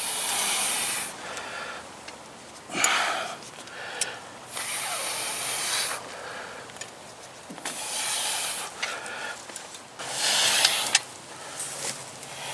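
A man breathing hard from exertion in the heat, with about five loud huffing breaths a few seconds apart. Between the breaths come light clicks and scrapes of barbed wire being twisted around itself by hand.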